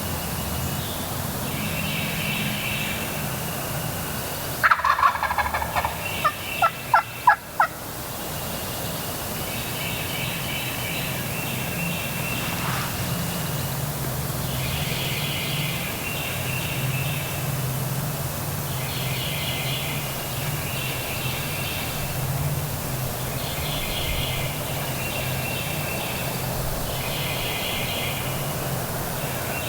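A wild turkey gobbler gobbling once, loud and close, about five seconds in: a quick rattling run of notes falling in pitch. Shorter, higher bird calls repeat throughout over a steady low rumble of wind.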